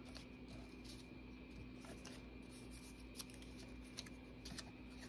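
Faint rustling and rubbing of paper scraps being pressed down and handled, with a few small ticks from about three seconds in, over a steady low hum.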